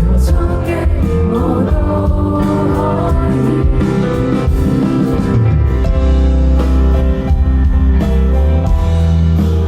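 Live indie pop band playing, with a voice singing over guitar, bass and drums in the first few seconds, then the band carrying on without words.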